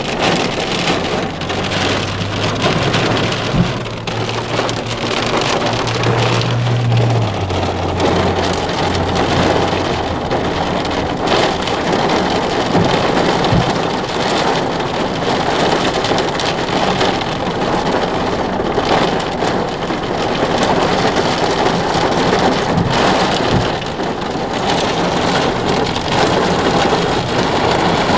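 Heavy wind-driven thunderstorm rain pelting a car in a steady downpour, with a few sharp knocks. A low steady hum sounds under it for the first several seconds.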